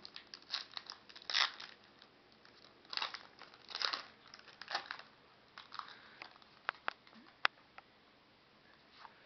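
Crinkling and tearing of a 2008 Upper Deck Masterpieces baseball card pack wrapper in bursts, then a few sharp clicks as the cards are handled.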